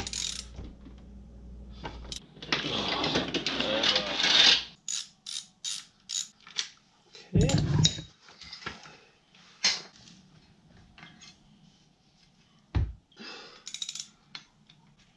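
Metal clicks, clanks and knocks from hand work on a bicycle's crank and chain as a new crank arm set is fitted. A dense run of clicking starts about two seconds in and lasts about two and a half seconds, followed by scattered sharp knocks.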